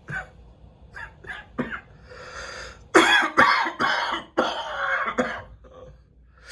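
A person with a summer head cold coughing: a few short faint sounds, then a run of four or five harsh coughs starting about three seconds in.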